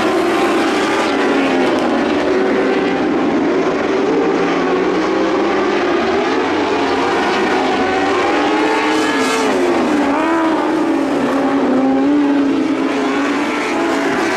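Lightning sprint cars racing on a dirt oval: several engines running at once, their pitch rising and falling as the drivers get on and off the throttle.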